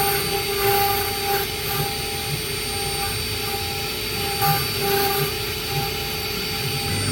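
STS1318 stone CNC router running, a steady machine noise with a whine that swells and fades every second or so.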